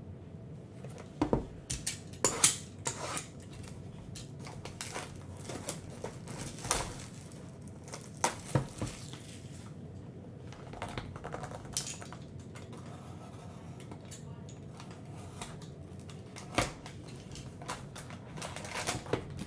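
Plastic shrink wrap crinkling as it is torn off a sealed trading-card box, then the cardboard box being handled and opened, with scattered sharp taps and clicks.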